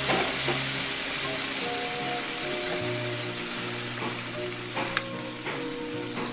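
Pork steaks sizzling steadily in a frying pan in teriyaki sauce and water, while a metal utensil stirs and turns the meat, giving a few sharp clicks against the pan near the end.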